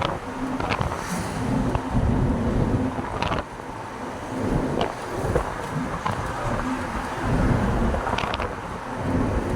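Truck running on the road, heard from inside the cab: a steady low engine and road rumble with a few short rattles.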